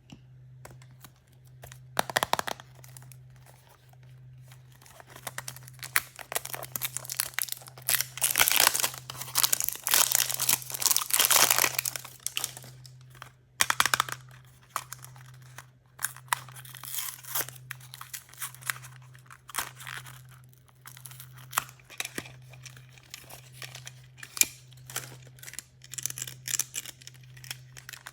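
Toy blind-bag packaging being torn open and crinkled by hand, in dense bursts with brief pauses and scattered sharp clicks.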